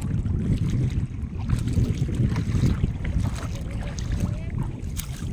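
Steady low rumble of wind buffeting the microphone by the sea.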